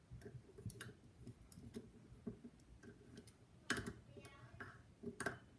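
An Allen wrench fitting into and turning the small set screw on a faucet handle: scattered light metallic clicks and ticks, with two louder clicks in the second half.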